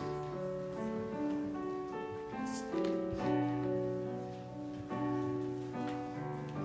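Electric keyboard with a piano sound playing slow, held chords.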